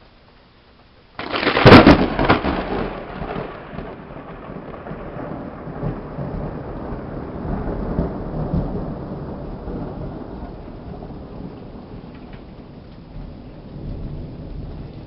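A close lightning strike: a sudden, very loud thunderclap about a second in, followed by long rolling rumbles of thunder that fade and swell again, over steady rain.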